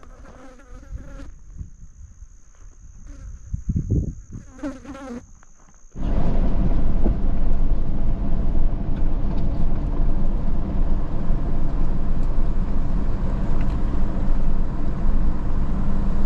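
Flies buzzing in short passes close to the microphone over a steady high-pitched whine. About six seconds in it cuts suddenly to the loud, steady rumble of a vehicle on the move.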